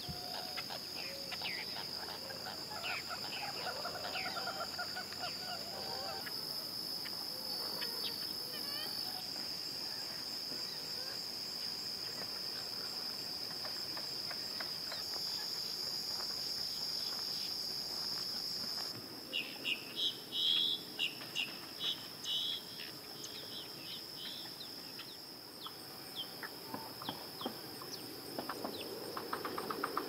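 Steady high-pitched drone of insects, with scattered bird chirps over it and a run of about eight loud, short, sharp calls about two-thirds of the way through.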